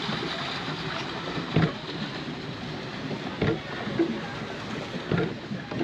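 Pedal boat moving on the water: a steady wash of water, with three dull knocks spaced about two seconds apart.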